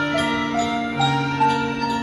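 Marching band music: held lower notes under a melody that moves on about every half second, with bright bell-like mallet notes.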